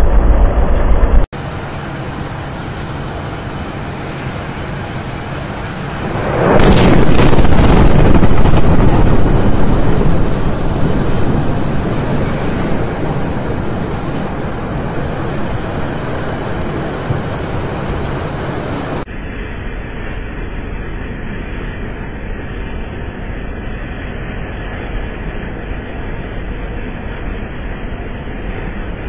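A large explosion: about six and a half seconds in, a blast swells into a loud rumble that holds for a few seconds and then slowly fades into a steady noisy rumble.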